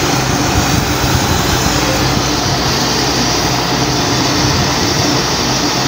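A steady mechanical whirring hum with a constant low drone.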